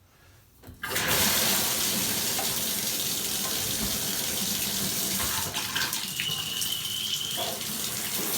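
Bath and shower water turned on about a second in, then running steadily with a hissing rush, as the repaired shower diverter valve is tested.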